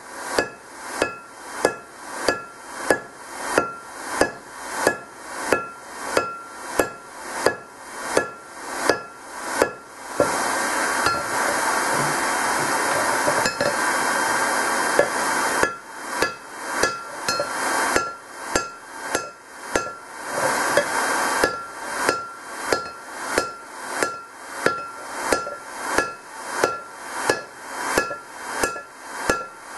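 Hand hammer striking a red-hot steel hammer head on an anvil in a steady rhythm, a little under two blows a second, each with a short metallic ring: hot forging of an old sledgehammer head into a straight peen hammer. For several seconds in the middle a steady rushing noise runs under the blows.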